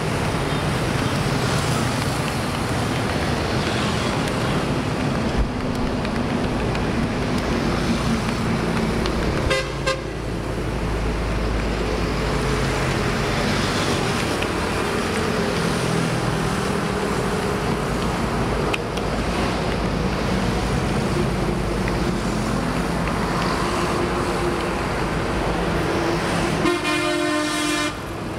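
Steady traffic on a busy highway, cars and motorbikes passing. A vehicle horn sounds briefly about ten seconds in and again, longer, near the end.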